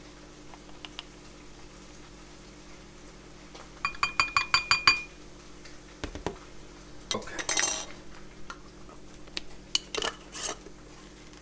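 A measuring spoon clinks rapidly against glass about four seconds in, a quick run of about eight ringing taps, followed by a short scrape of the spoon in ground coffee. Near the end come a few sharp clicks as a metal lid goes back onto a glass jar.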